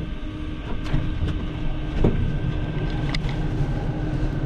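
Steady low rumble and hum inside a passenger train at its doorway, with a few short, sharp clicks and knocks.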